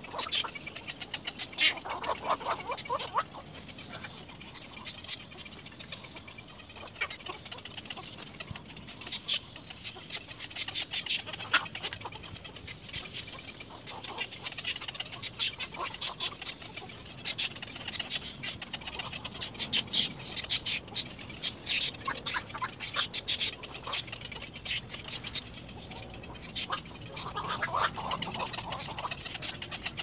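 Little egret chicks calling in the nest: a rapid clicking chatter throughout, with a harsher, rasping call about two seconds in and another near the end.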